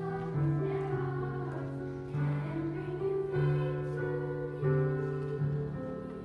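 A girls' choir of about ten-year-olds singing held notes with piano accompaniment.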